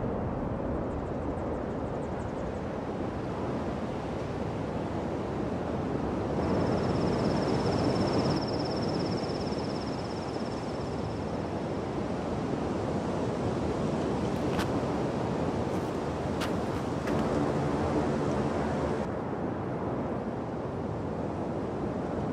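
Mountain bike rolling along a gravel path, a steady rush of tyre crunch and wind on the microphone. A high steady buzz runs for about five seconds in the middle, and a few sharp clicks come later.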